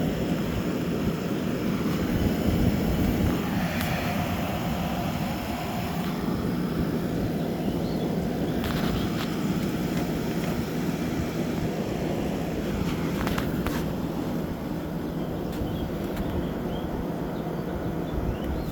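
Frigidaire 8,000 BTU window air conditioner running with its compressor on and its fan on low speed: a steady drone with a low hum.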